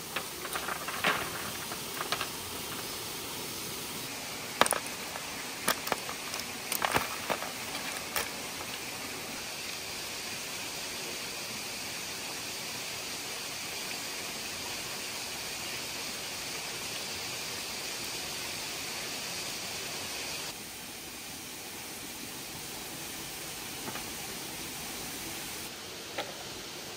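Steady background hiss, with rustles and sharp knocks in the first eight seconds as clusters of small wild fruits on their stalks are tipped from a wicker basket onto a woven bamboo tray and handled. A faint high-pitched steady drone runs from about ten to twenty seconds in.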